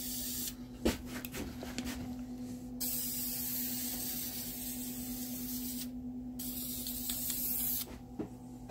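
Krylon aerosol spray paint can hissing in three bursts: a short one at the start, a long one of about three seconds, then one of about a second and a half, with a few light clicks between them. A steady low hum runs underneath.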